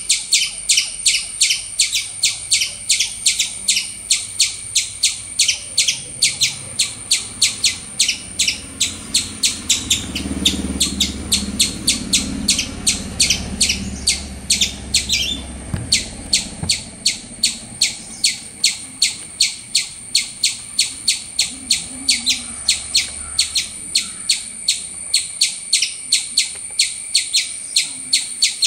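Eastern gray squirrel calling in a rapid, even run of short high chirps, about three a second, with a brief break about fifteen seconds in.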